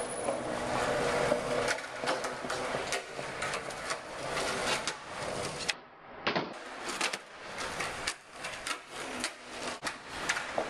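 Skateboard wheels rolling over concrete, with repeated clacks and knocks of the board on the ground. About six seconds in the rolling drops out briefly, then the board clatters down after a bailed trick.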